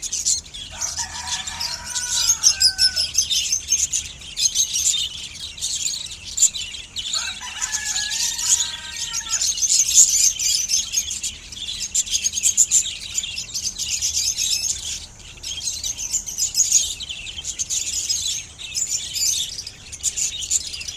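Budgies chirping and twittering continuously in high, rapid calls. Twice a lower, drawn-out call stands out for a couple of seconds, about a second in and again about seven seconds in.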